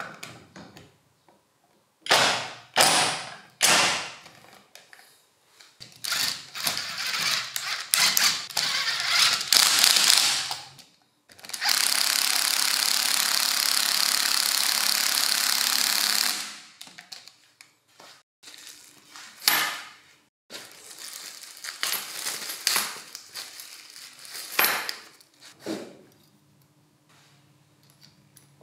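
Makita HR2451 rotary hammer drill, converted to run on an 18 V battery, running with its hammer action. It is switched on in several short bursts, then held on steadily for about five seconds, then given a few more short bursts.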